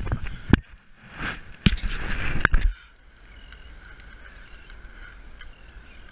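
Handling noise on the camera: irregular knocks and rubbing that stop abruptly a little under three seconds in. After that a steady low rush of surf and wind carries on.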